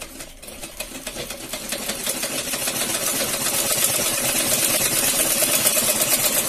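Usha sewing machine running a straight stitch line: a fast, even clatter of needle strokes that picks up and grows louder over the first two or three seconds, then runs steadily.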